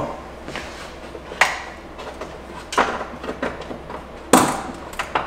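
Hard plastic car trim parts being handled, giving three sharp clicks and knocks with the loudest a little after four seconds in.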